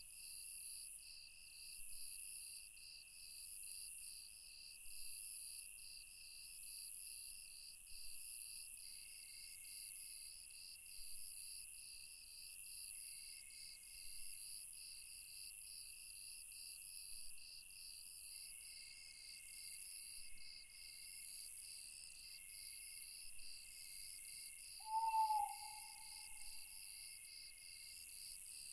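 Night insects such as crickets chirp in several steady, overlapping high choruses, one of them swelling about once a second. Near the end a single short hoot, like an owl's, is the loudest sound.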